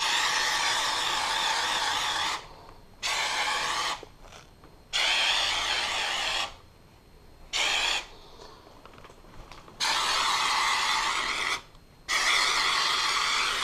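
Homax aerosol spray-texture can spraying drywall texture onto a wall: six bursts of hissing spray, the first about two seconds long, with short pauses between them.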